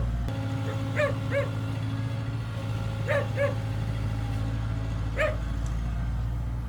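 A dog barking: two barks about a second in, two more around three seconds, and one near five seconds. Under it, a heavy machine's engine runs steadily.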